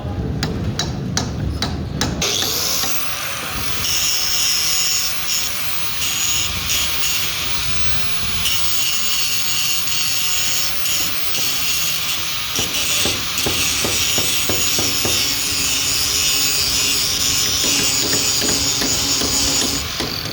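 Power grinder grinding metal: a continuous high-pitched hiss with a steady whine, starting about two seconds in and running until just before the end.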